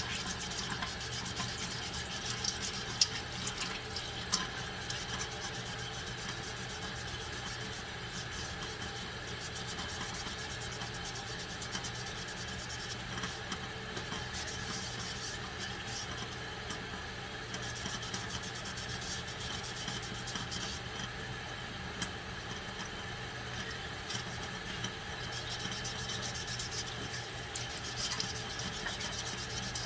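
Cold tap water running into a sink while a plastic eyeglass lens is wet-sanded by hand with 1000-grit sandpaper: a steady rush of water with a light rubbing scrape over it.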